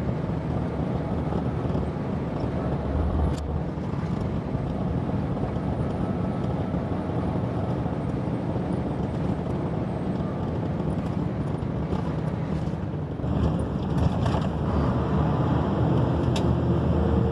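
Mercedes-Benz Axor 3344 truck's diesel engine running steadily under way, heard from inside the cab. About thirteen seconds in the engine note changes and gets a little louder, with a few sharp clicks near the end.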